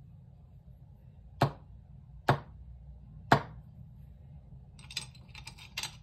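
Three sharp knocks on a wooden tabletop, about a second apart, then a quick run of small clicks near the end as tumbled crystal stones are handled in their dish.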